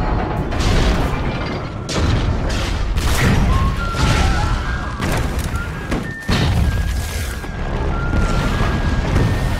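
Film soundtrack of heavy low rumbling with repeated crashes and booms, and some music mixed in.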